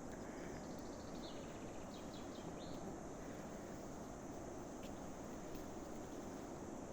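Steady outdoor background hiss with a few faint, high bird chirps and short trills between about one and two and a half seconds in.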